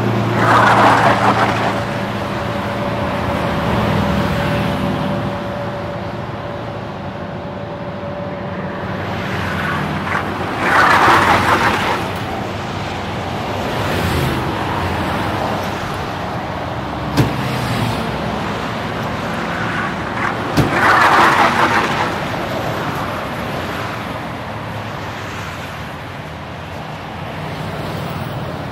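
Steady road-traffic noise with a low hum, swelling louder three times, about ten seconds apart, as vehicles pass, with a couple of sharp clicks.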